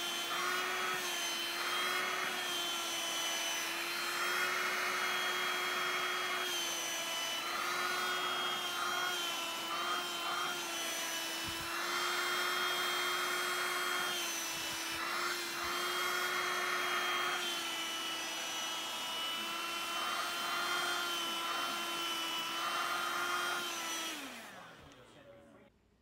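Small red handheld vacuum cleaner running with a steady motor whine, its suction rush swelling and fading again and again as the nozzle is worked over a cat's fur. Near the end it is switched off and the motor winds down, its pitch falling away.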